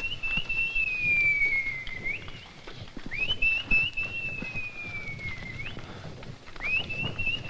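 A person whistling three long whistles in a row. Each rises quickly, gives a few short flicks, then glides slowly down in pitch and ends with a short upturn.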